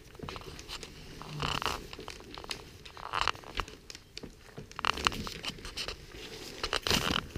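German Shepherd puppies eating soft mushed food from a plate, making irregular smacking and licking sounds, with newspaper crinkling under them as they shift about.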